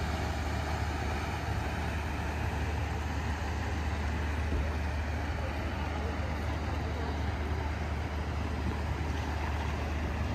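Steady low rumble with an even hiss above it, unchanging throughout.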